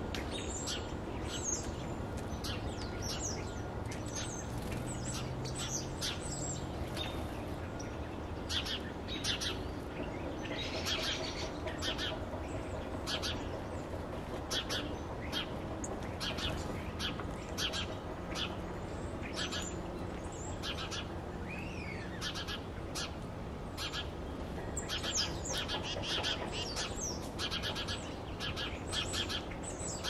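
Small songbirds chirping: many short, high chirps in quick runs, with one rising-and-falling call about three-quarters of the way through, over a steady low background rumble.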